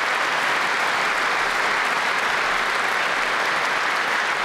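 Large audience applauding, a dense steady clapping that holds throughout.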